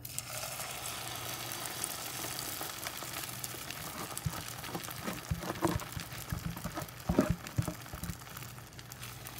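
Beaten egg and grated carrot batter sizzling as it is poured into hot olive oil in a nonstick frying pan, the sizzle starting suddenly as the batter hits the oil. From about four seconds in there are scattered knocks and taps, loudest about seven seconds in.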